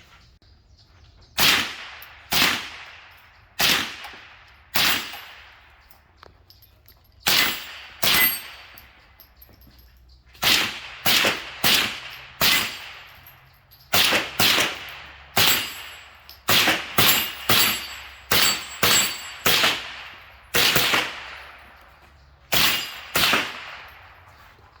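Suppressed .22 LR semi-automatic rifle, a Smith & Wesson M&P 15-22, firing about two dozen shots at an uneven pace, some spaced out and some in quick strings. Each shot is a sharp crack with a short echoing tail.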